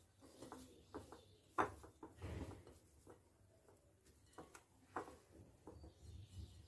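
Hands mixing a wet mixture of chopped onion, herbs and spices in a ceramic bowl and pressing a courgette into it: faint rustling and squishing with a few light clicks against the bowl, the sharpest about a second and a half in.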